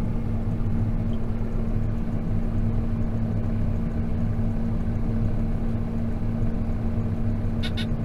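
Tractor engine running steadily, heard from inside the cab: an even hum with a constant low drone. Two short high beeps sound near the end.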